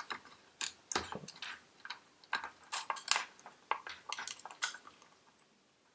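Irregular small clicks and knocks of hard plastic and metal as a replacement Roomba brush motor is handled and pressed into its green plastic brush housing. The clicks die away near the end.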